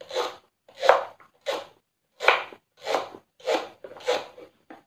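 Kitchen knife slicing through fresh taro stalks onto a wooden cutting board: about seven crisp, crunchy cuts at an even pace, roughly one every two-thirds of a second.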